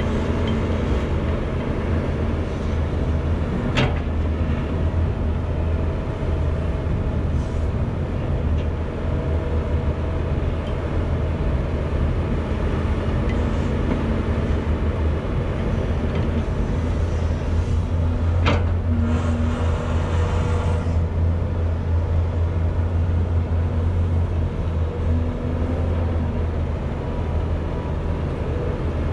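Volvo EC210BLC excavator's diesel engine running steadily under working load, with a deep continuous hum. Two sharp knocks, about 4 s in and again about 18 s in, and after the second a couple of seconds of rushing noise of soil pouring into the dump truck's steel bed.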